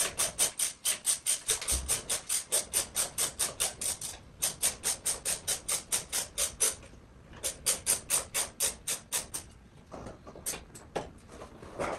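Hand ratchet clicking in fast, even runs of about six clicks a second as a bolt is backed out, pausing briefly twice and thinning to a few scattered clicks near the end.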